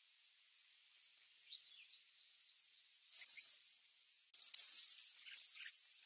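Faint high chirps from red-whiskered bulbul nestlings begging at the nest, over a steady hiss. A louder burst of hiss comes about three seconds in, and another starts suddenly just after four seconds and carries on.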